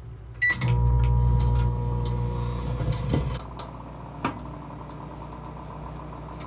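Microwave oven started: a short keypad beep, then the oven running with a steady electrical hum. The hum is louder for its first few seconds and settles lower, with a couple of small clicks.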